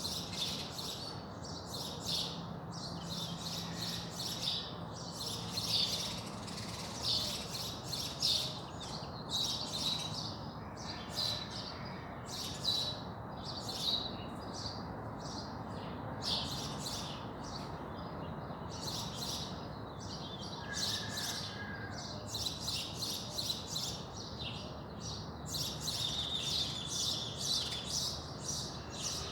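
Dawn chorus of many small birds chirping and twittering, short high calls overlapping almost without a pause, over a faint steady low background noise.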